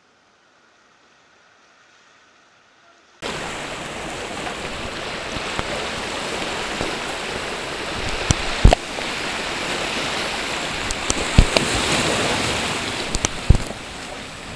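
Near silence for about three seconds, then ocean surf washing over shoreline rocks sets in suddenly as a steady rushing noise. A few sharp knocks cut through it in the second half.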